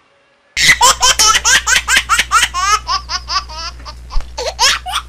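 High-pitched laughter in quick repeated bursts, starting suddenly about half a second in.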